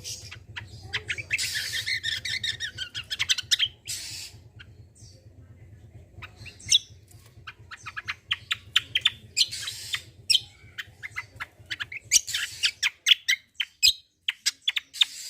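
A kecial kombo (cucak kombo) singing hard: rapid strings of sharp chirps ("tembakan") broken by harsh rasping bursts ("besetan"). A low steady hum runs underneath and stops about thirteen seconds in.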